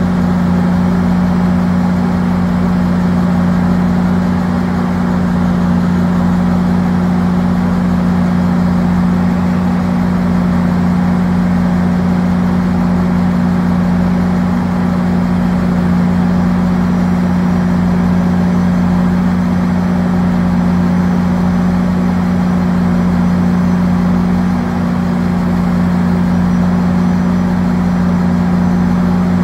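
GO Transit diesel locomotive standing at idle, a loud steady hum at one unchanging pitch over an even rumble.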